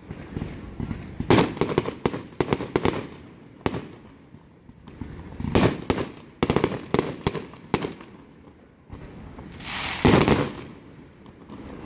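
Aerial fireworks shells exploding in a rapid run of sharp bangs, coming in clusters with short lulls between.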